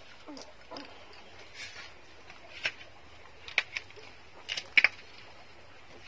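Newborn puppies suckling at their mother's teats: scattered short, wet smacking clicks and faint squeaks, several close together about halfway through.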